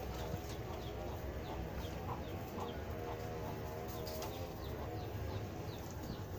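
Farmyard background of hens clucking and small birds chirping in short, repeated calls, over a steady low noise.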